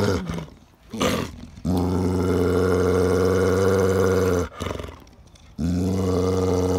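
Akita Inu dog giving long, low, drawn-out howling calls, the 'mama'-like talking the title credits it with. A short cry comes about a second in, then a held note of nearly three seconds, and after a pause of about a second another long note begins.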